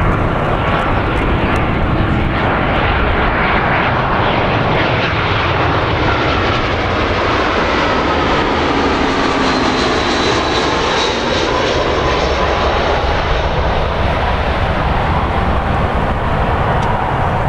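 Airbus A320-200 jet engines at approach power as the airliner passes low overhead on final approach, a loud steady jet noise with a whine that bends in pitch as it goes by.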